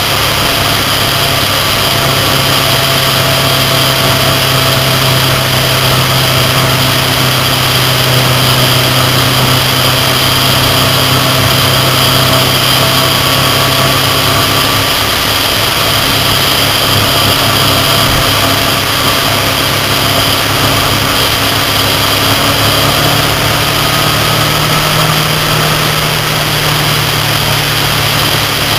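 Motorcycle engine running at road speed, with steady wind and road rush on the microphone. The engine note changes pitch about halfway through and rises again later on.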